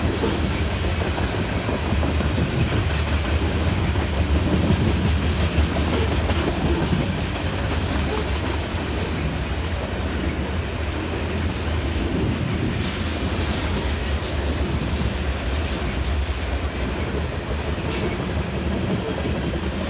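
Freight train of grain hopper cars rolling past, a steady rumble of steel wheels on rail with clicks over the rail joints and a faint high wheel squeal about halfway through.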